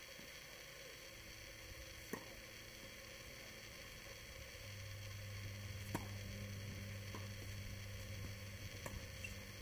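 Faint tennis balls struck by rackets in a doubles rally, a few sharp knocks a second or two apart, over a low steady hum that grows louder about halfway through.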